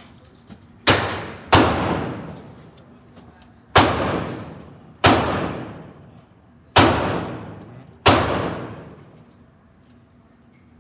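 Six gunshots in an indoor shooting range, fired by other shooters while the magazine is being loaded. Each is a sharp crack with a long echoing decay. Two come close together about a second in, and the rest follow at uneven gaps over the next seven seconds.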